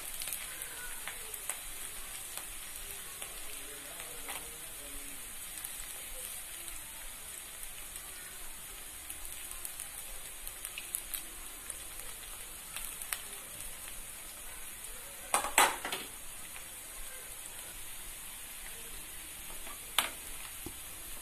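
Chopped ginger and garlic with whole spices frying in oil in a clay kadai, a steady crackling sizzle. A short cluster of louder knocks comes about fifteen seconds in, and one more knock near the end.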